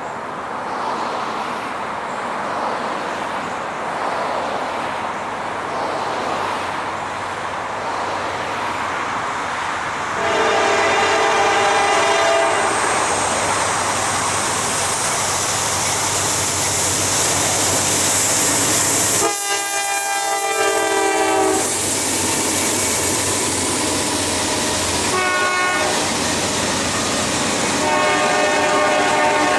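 Norfolk Southern Dash 9-40CW diesel freight locomotives approach with a rumble that grows louder over the first ten seconds. The lead unit's air horn then sounds long, long, short, long, the grade-crossing signal, with the last blast still sounding at the end.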